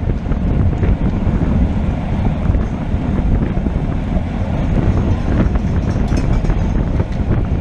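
Wind buffeting the microphone of a moving camera: a loud, steady, low rush with no distinct events standing out.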